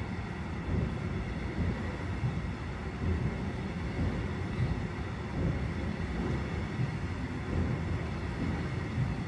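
Freight train of car-transporter wagons loaded with vans rolling past at close range, a steady rumble of wheels on rail with an uneven, pulsing loudness. Wind buffets the microphone.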